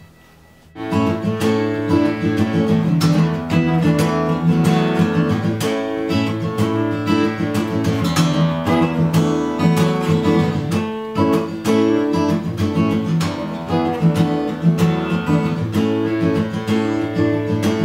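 Taylor acoustic guitar strummed in steady chords, starting about a second in.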